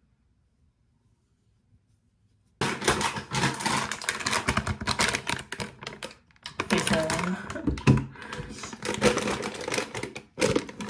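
Soft plastic packet of makeup-remover wipes crinkling and rustling as it is handled, starting suddenly about two and a half seconds in after near silence.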